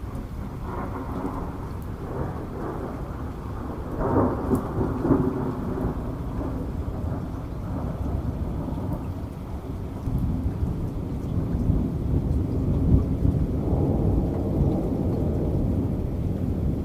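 Rolling thunder rumbling over steady rain, with a sharp swell about four seconds in and a longer build through the second half.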